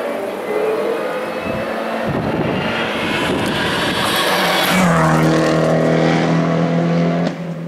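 Race car engine running hard through a hillclimb, with a sweep in pitch a little past halfway as the car goes by. A steady, held engine note follows.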